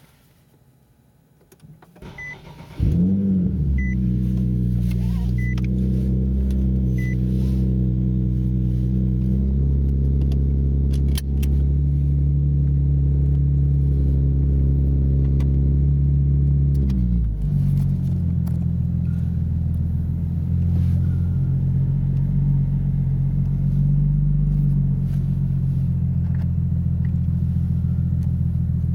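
Nissan 370Z's 3.7-litre V6 with a Fast Intentions exhaust (18-inch carbon-fibre resonators, non-resonated high-flow cats), heard from inside the cabin with the windows up, starting up: it catches with a brief rev flare about three seconds in, then settles into a high idle that drops in two steps, around ten and seventeen seconds in. A few short electronic beeps sound before and just after it starts.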